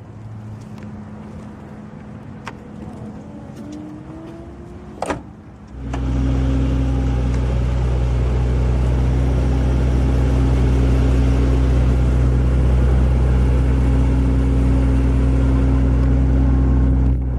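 Power trunk lid motor whining with a slowly rising pitch, ending in a sharp thud as the lid latches shut about five seconds in. Then the Mercedes-Benz S65 AMG's twin-turbo V12 is heard running at a steady idle, much louder.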